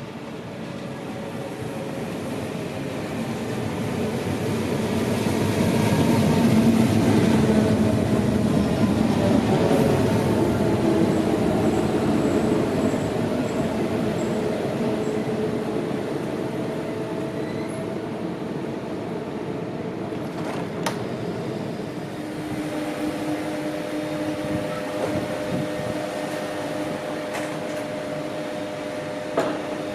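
SBB S-Bahn electric multiple-unit train pulling in, its running noise growing to a peak about seven seconds in, then easing with falling tones as it slows to a stop. Standing at the platform it gives off a steady hum from its onboard equipment, with a sharp click about two-thirds of the way through and another near the end.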